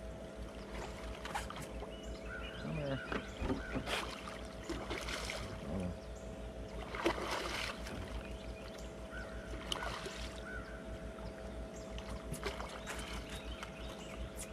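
Boat motor running steadily with a faint whine and a low throb, with a few brief rushes of noise over it.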